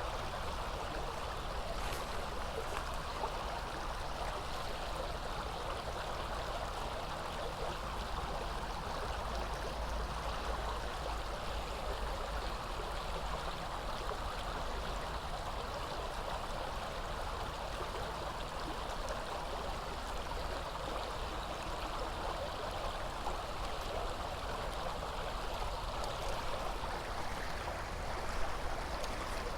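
Steady running water of a stream flowing past the bank, with a small knock near the end.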